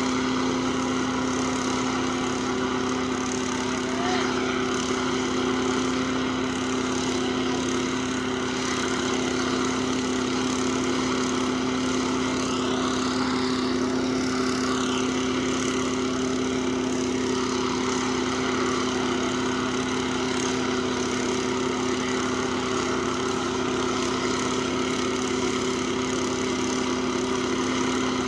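A small engine running steadily, a constant hum that does not change in pitch or level.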